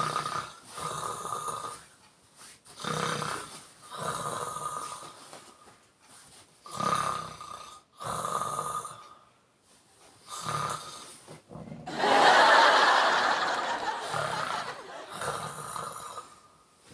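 A sleeping man snoring, each breath a rasping snore, in cycles of about three to four seconds. About twelve seconds in comes a louder, longer, breathier snore that slowly fades.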